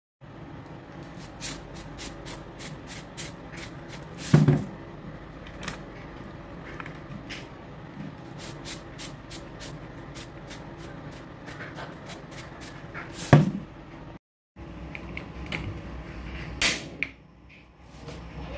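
Kitchen handling noises: many light clicks and taps, with a few louder knocks standing out, two of them well apart and another after a brief break in the sound.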